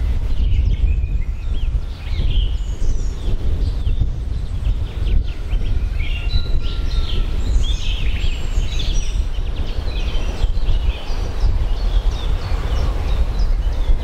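Songbirds chirping and calling in many short notes, busiest from about six seconds in, over a loud, steady low rumble of outdoor noise.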